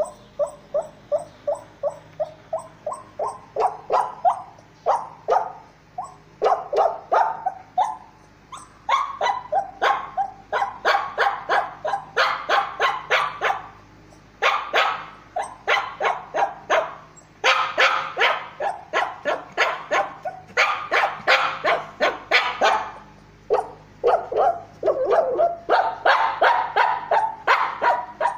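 Shih Tzu whining and yipping in rapid runs of short, high calls, several a second, with brief pauses between runs: the fretful crying of a male dog near a female in heat.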